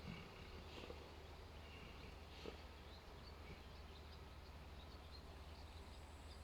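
Faint snoring of a sleeping animal: a few soft breathy snores over a steady low hum.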